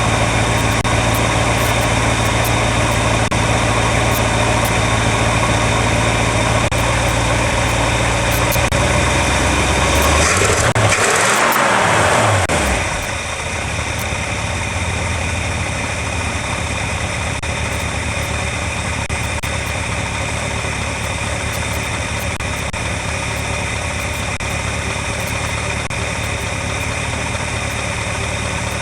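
1958 Ford Thunderbird's V8 idling steadily shortly after a cold start. About ten to thirteen seconds in, the engine speed briefly rises and falls, then it settles into a quieter, lower idle.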